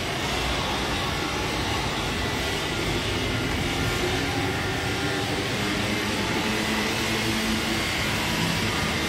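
Steady industrial machinery din in a steel fabrication workshop: a continuous hum and hiss with faint steady tones and no distinct knocks.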